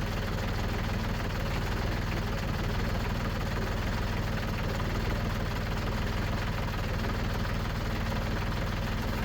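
Compact tractor's diesel engine running steadily.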